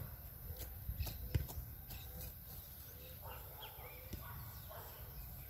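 Quiet open-air ambience with faint bird chirps, and a few light knocks in the first second and a half from the football being handled.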